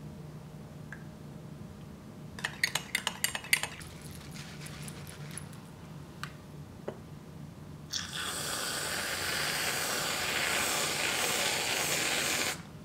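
Aerosol can of whipped cream spraying: a steady hiss lasting about four and a half seconds that cuts off suddenly near the end. About two and a half seconds in there is a quick run of clicks and rattles.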